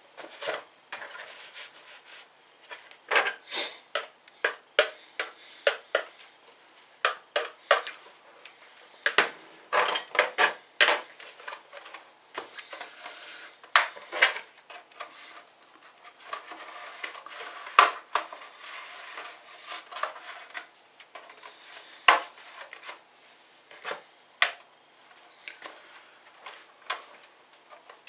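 Irregular clicks, taps and brief scrapes of a small screwdriver and hard plastic parts being handled while a laptop is taken apart.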